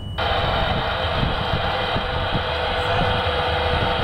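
Cab noise of an electric locomotive under way: a steady low running rumble, joined a moment in by a steady higher hiss-like noise that switches on abruptly and keeps going.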